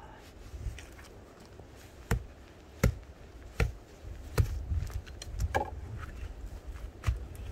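A series of sharp knocks: four strong strikes about three-quarters of a second apart, then a few lighter ones, like steady hammering or chopping.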